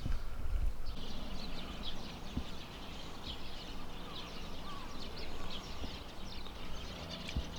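Birds chirping outdoors, many short high calls overlapping, with a few lower gliding notes, over a steady low rumble.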